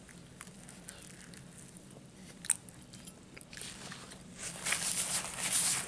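Close-up chewing of a bite of French dip sandwich on a bread roll: soft chewing with scattered small clicks and one sharp click about two and a half seconds in, then louder, crunchier chewing near the end. A faint steady hum runs underneath.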